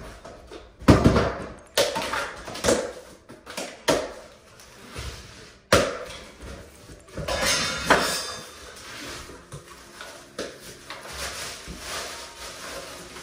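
A cardboard carton of ready-mixed lightweight drywall joint compound being torn open by hand, with irregular knocks and cardboard tearing, then the crinkling of the plastic bag of compound being pulled out.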